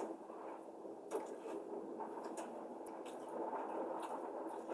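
A person chewing a mouthful of food, soft and wet, with a few light clicks through it.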